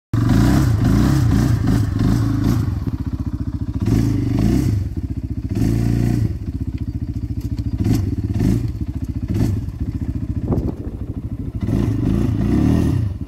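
Off-road vehicle engine revving hard and unevenly, its pitch rising and falling again and again, with a few knocks and clatters.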